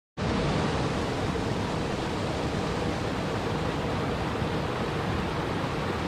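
Rushing water from a small waterfall spilling over boulders into a flowing river: a steady, even rush.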